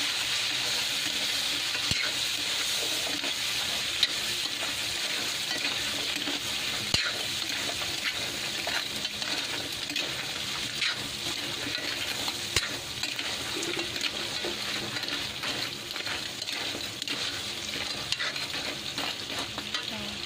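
Blue swimming crabs sizzling as they fry in hot melted margarine and garlic in a metal wok, with a steady hiss. A metal spoon scrapes and clinks against the wok as they are stirred, with a few sharper knocks.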